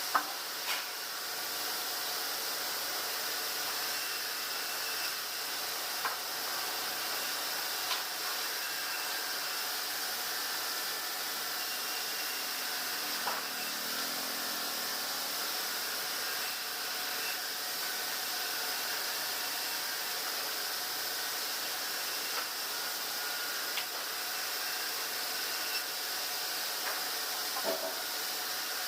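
Sawmill log bandsaw machinery running with a steady hiss-like noise and a few faint steady tones, broken now and then by short knocks.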